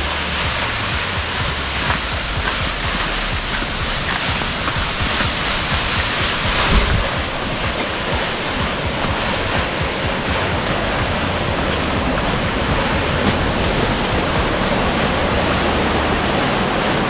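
Steady rushing roar of a tall waterfall in heavy flow, water crashing onto the rocks below.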